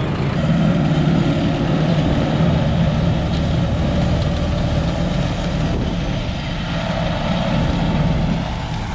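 Kubota M7-171 tractor's diesel engine running steadily.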